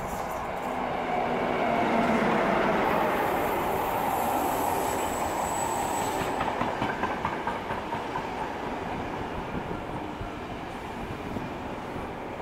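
A CP Intercidades train, a red electric locomotive hauling a rake of coaches, running past along the platform. The locomotive's rumble is loudest about two seconds in, with a high thin whine over it for a few seconds, then the coaches' wheels click rhythmically over the rail joints as the sound eases.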